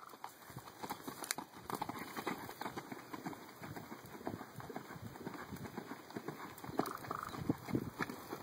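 Hoofbeats of a cantering horse on soft arena dirt: a continuous run of dull thuds.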